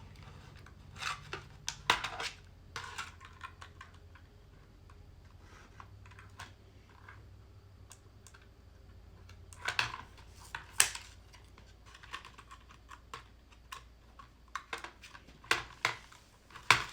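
Plastic and cardboard toy packaging being handled and cut to free a small toy car. Scattered sharp clicks and crackles come in clusters about a second in, around ten seconds, and again near the end.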